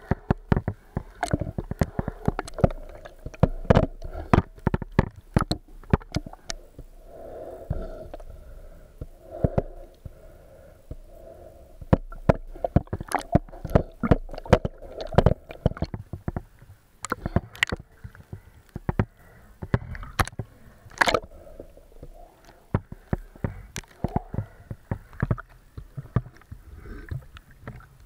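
Water sloshing and gurgling, with many irregular sharp clicks and knocks.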